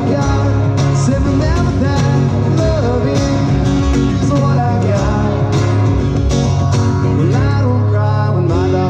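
Live band playing a song: an acoustic guitar strummed over a steady bass line, with a man singing.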